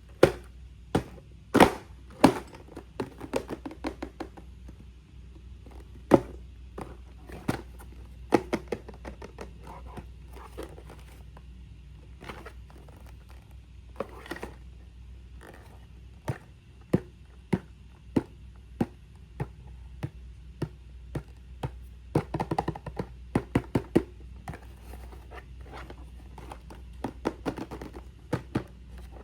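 Blind box packaging and small plastic figure parts being handled: irregular clicks, taps, scrapes and crinkles, some sharp and close, over a steady low hum.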